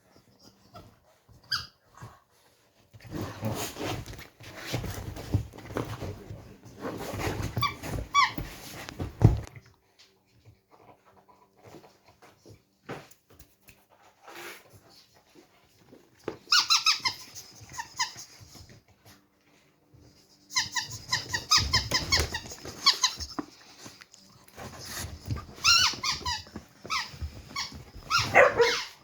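A dog working a squeaky toy: a stretch of scuffling and chewing noise, then several runs of quick, high-pitched squeaks as the toy is bitten over and over.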